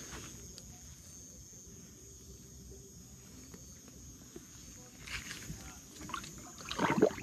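Water sloshing with a few small splashes, then one louder splash near the end, as a hooked fish is held in the water and let go.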